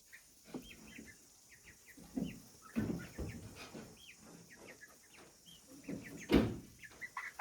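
Baby chicks cheeping, many short high peeps overlapping, with a few low rustles and thumps, the loudest about six seconds in.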